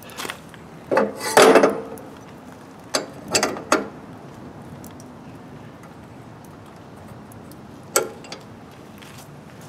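Steel hitch ball mount being slid into a homemade scrap-steel receiver hitch on a riding mower: metal scraping and clanking about one to two seconds in, then a few sharp clanks around three to four seconds. One more sharp metal clank about eight seconds in.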